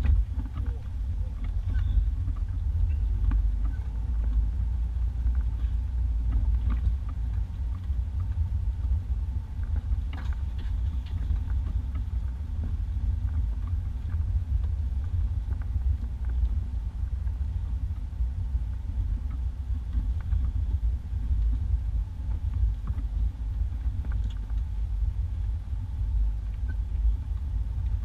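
1991 Isuzu Trooper driving on a dirt two-track, heard from inside the cabin: a steady low engine and road rumble with occasional light clicks and knocks.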